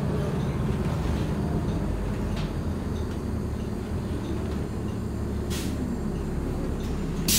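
City transit bus running steadily, heard from inside the cabin: a low engine and road rumble with a couple of faint rattles. A sudden loud hiss starts near the end.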